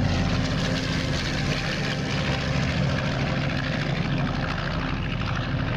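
Twin-engine airplane's engines droning steadily in flight.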